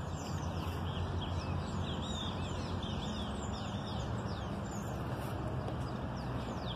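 Many small birds chirping, quick falling chirps repeating throughout, over a steady low hum.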